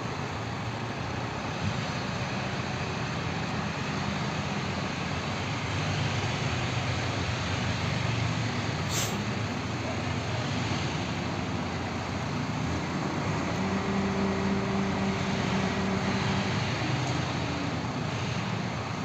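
A heavy engine running steadily under broad machine noise, its hum growing stronger and steadier from about 13 seconds in and easing off again near 17 seconds. There is one brief sharp click about 9 seconds in.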